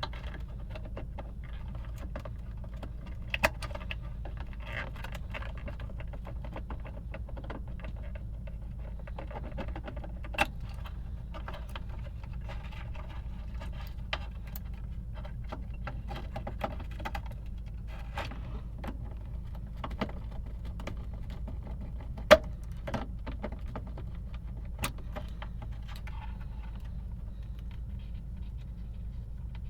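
Small metal parts and hand tools being handled on a workbench: scattered light clicks and clatter with a few sharp taps, the loudest about two-thirds of the way in, over a steady low hum.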